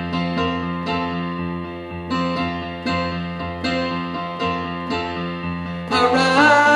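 Instrumental break in a worship song: electric piano playing repeated chord strikes, about every 0.7 s, over a held bass. About six seconds in, the band swells into a louder, fuller chord.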